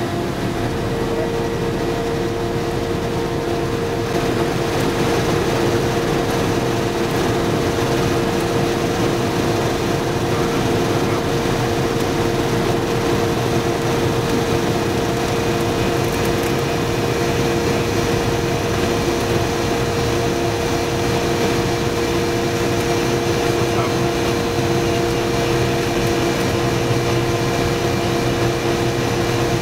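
Cessna 172's piston engine and propeller droning steadily, heard inside the cockpit, a hum of several steady tones with a new tone joining about a second in. It gets a little louder about four seconds in and then holds steady.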